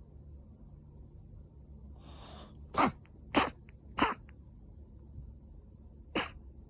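A woman's rapid sneezing fit from allergic rhinitis. A drawn breath about two seconds in is followed by three sharp sneezes in quick succession, and a fourth comes about two seconds later.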